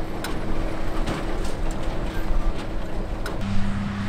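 Tractor and Krone Big Pack 1270 XC square baler working in hay: a steady engine drone with scattered sharp clicks and knocks from the baler. About three seconds in, the engine note shifts to a steadier, lower hum.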